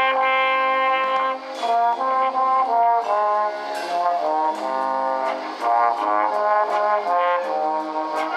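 High school wind band playing: brass-led chords held and changing every second or so, with light percussion ticks over the top.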